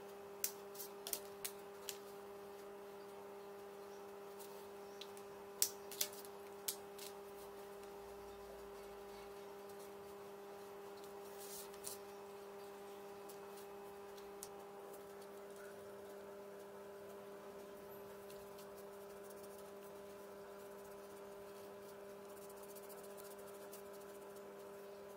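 Small sharp clicks and taps from felt-tip markers being handled, their caps pulled off and snapped on and the pens set down: a quick cluster in the first two seconds and two louder clicks about six seconds in. A faint steady hum runs underneath.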